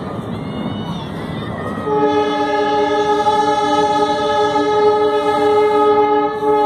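Train horn sounding one steady, multi-toned blast for about five seconds, starting about two seconds in and cutting off at the end, over the running noise of the moving train heard from inside the coach.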